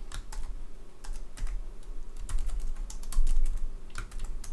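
Typing on a computer keyboard: a run of separate key clicks at an uneven pace.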